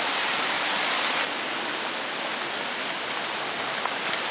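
A rain-swollen stream rushing steadily, an even hiss of running water that eases slightly about a second in.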